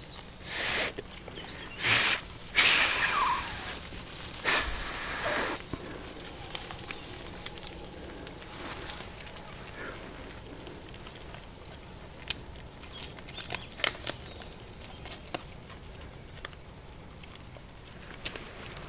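Young wild boars giving four short, harsh, hissing squeals in quick succession, one with a falling pitch. After them come faint scattered clicks and rustles from the feeding group.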